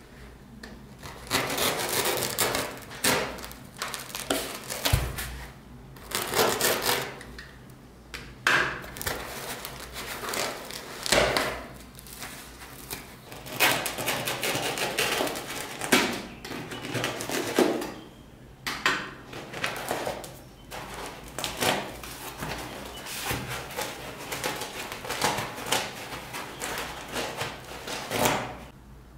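Utility knife blade cutting and gouging through a thick block of black foam, with chunks being torn out: a run of scratchy, crunching strokes, each a second or two long, with short pauses between.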